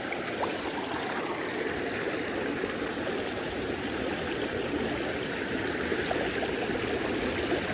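Steady flowing river water.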